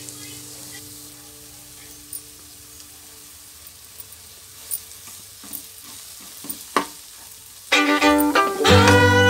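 Masala frying with a faint sizzle in a metal pan, a steel spoon clinking against the pan a few times as it is stirred. Loud fiddle music starts near the end.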